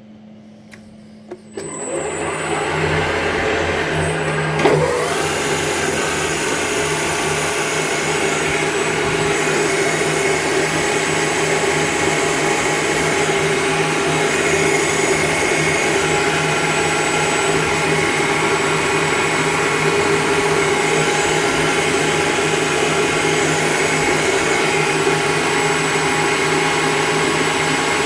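SPRINT TR22 turret lathe, its motor driven by a frequency inverter, starting up about a second and a half in and then running steadily with a hum, a few steady tones and a hiss. A brief knock comes a few seconds after it starts.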